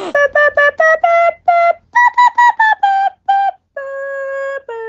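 A flute-like melody: about a dozen quick, detached notes, then two long held notes near the end, the second one lower.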